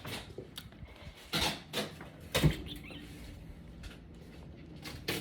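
Several short knocks and clunks of handling, the loudest about two and a half seconds in, over a faint steady hum.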